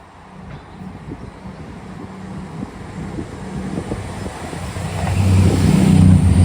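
Diesel passenger train approaching. Its engines and wheels grow steadily louder, with a deep engine drone that swells near the end.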